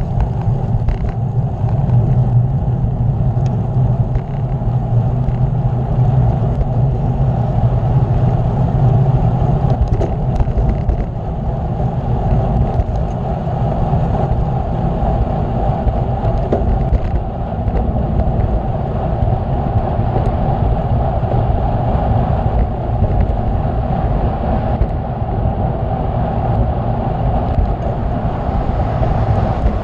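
Steady rushing wind and road rumble on the microphone of a moving bicycle, with a low hum that fades out about a third of the way through.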